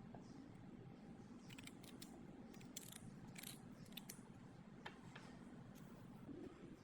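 Near silence: faint low background noise with a scattered handful of light clicks.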